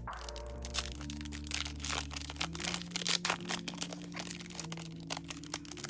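Trading cards and their plastic pack wrapper being handled: a run of quick crinkles, rustles and light clicks, over background music with long held notes.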